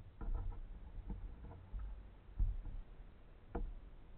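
A plastic kayak being paddled, picked up through its hull: a few irregular knocks and thumps with small splashy clicks, the strongest about two and a half seconds in.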